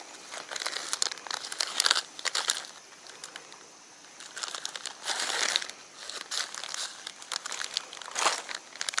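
Plastic lure packets crinkling and a drawstring bag rustling as hands rummage through it, in irregular bursts with a quieter lull about three to four seconds in.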